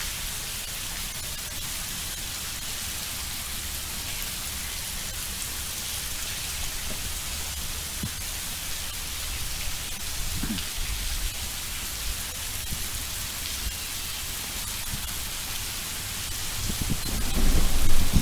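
Heavy rain pouring, a steady hiss, with a low rumble that swells near the end.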